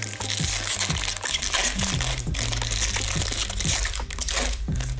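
Foil wrapper of a Fleer Ultra hockey card pack crinkling as it is torn open by hand, in a few spells with short gaps. Background music plays underneath.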